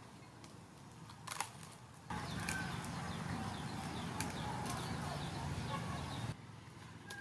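Outdoor ambience with birds chirping. There is a sharp click about a second and a half in. From about two seconds in, a louder low rumble joins frequent short bird chirps, and it all cuts off suddenly near the end.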